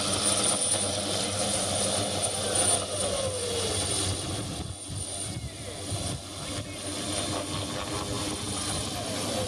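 AgustaWestland AW139 twin-turbine helicopter lifting off and climbing overhead: a steady turbine whine over the rotor noise, briefly quieter about five seconds in.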